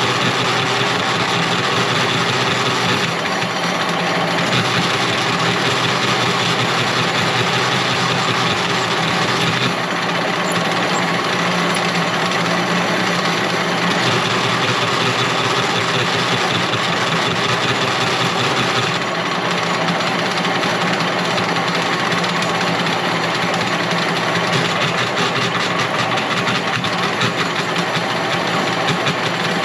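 Motorized wire-stripping machine running steadily, its sound shifting now and then as it works.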